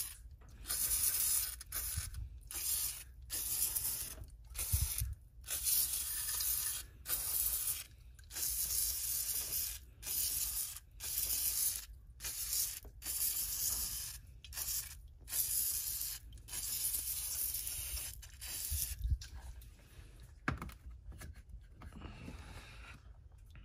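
Aerosol can of WD-40 Specialist engine degreaser sprayed through its straw in short hissing bursts, about one a second, stopping near the end.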